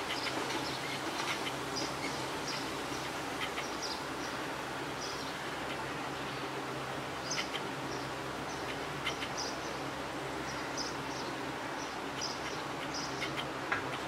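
Hot oil sizzling in a kadhai as pumpkin and rice-flour vade deep-fry: a steady hiss with scattered crackles and spits.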